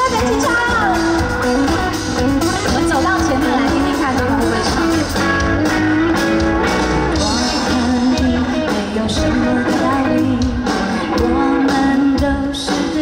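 Live band music: a pop-rock song with guitar, drums and a singing voice.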